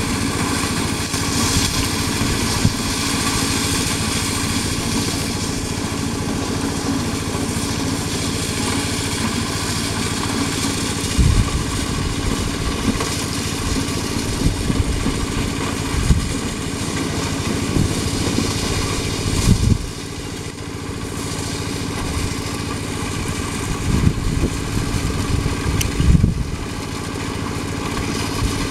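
Small engine of a corn sheller running steadily, with a few low thumps now and then.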